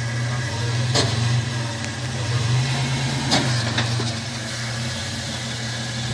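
Toyota 4Runner's engine running steadily at low revs as it crawls over large rocks, with two sharp knocks about one second and about three seconds in.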